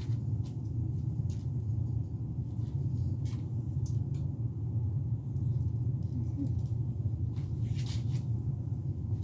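Steady low hum with scattered faint clicks and ticks.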